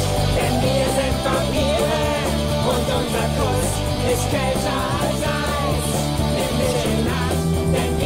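The series' rock theme song playing, with a singing voice over guitar and a steady bass line.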